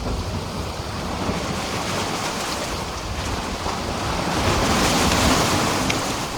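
Sea waves washing against a pier: a continuous surging wash that swells to its loudest about five seconds in, then eases.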